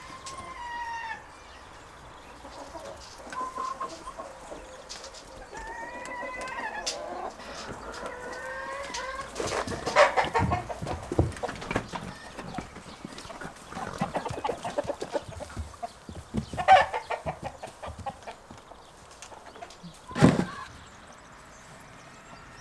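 Chickens clucking and calling in the yard, with a few louder short noises among them, the strongest near the end.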